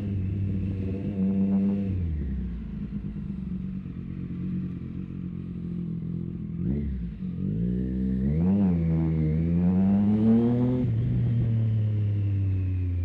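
2020 Triumph Street Triple RS 765 cc inline-three running through an SC Project S1 exhaust with the baffle removed, on a fresh ECU remap. It holds steady revs, drops off the throttle about two seconds in and gives a short blip near seven seconds. The revs then climb, with a brief dip partway, before settling back to a steadier, lower note near the end.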